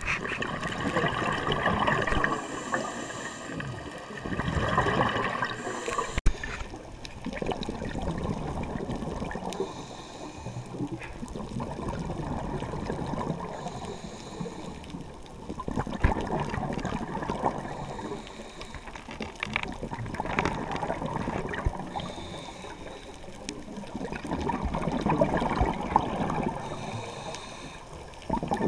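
Scuba exhalation bubbles gurgling, heard underwater through a camera housing: bubbly swells a second or two long that come and go every few seconds. A single sharp click about six seconds in.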